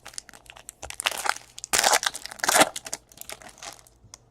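Foil wrapper of a Bowman Chrome baseball card pack crinkling and being torn open: three short rasping tears about one, two and two and a half seconds in, among small crackles and clicks.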